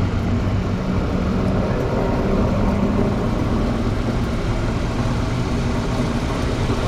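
2014 Kia Forte running in drive on a lift with its wheels spinning freely, a steady grinding hum like metal rubbing on metal coming from a worn wheel hub bearing.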